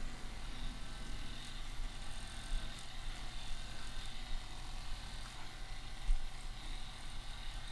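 Handheld electric percussion massage gun running steadily against the calf and shin muscles, a continuous low motor hum with a faint high whine, loosening tight tendons.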